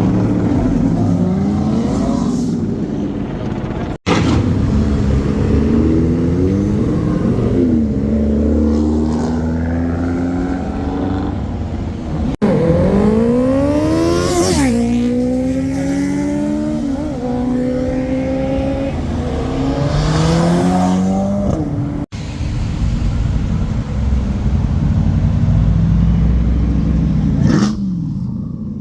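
Car engines revving and accelerating hard, pitch climbing and dropping back through gear changes. The sound comes in several separate stretches with abrupt cuts about 4, 12 and 22 seconds in.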